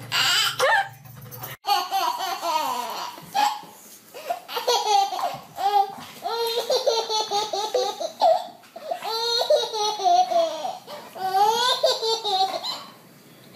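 A baby laughing out loud in repeated bursts, each a run of quick high-pitched laughs.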